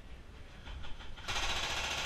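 Airsoft gun firing full-auto, a rapid mechanical rattle that starts about one and a half seconds in, after a low rumble with a few faint ticks.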